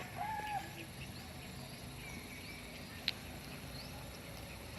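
A chicken's call trailing off in the first half-second, then a steady low outdoor background with a single sharp click about three seconds in.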